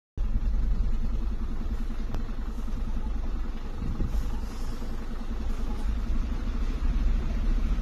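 A car running, heard from inside the cabin while driving: a steady, heavy low engine and road rumble, with a couple of light knocks, about two and four seconds in.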